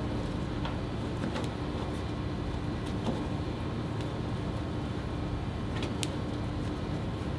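Steady machine hum with a faint low tone, broken by a few faint taps.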